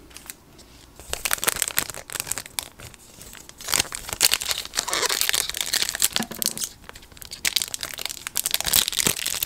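Crinkling and tearing of the foil wrapper of a Topps Chrome baseball card pack as it is handled and ripped open, a dense crackle that starts about a second in.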